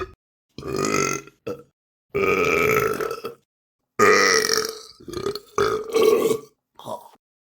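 A run of about six loud human burps with short silent gaps between them. Some are drawn out, the longest lasting over a second, and a couple are brief.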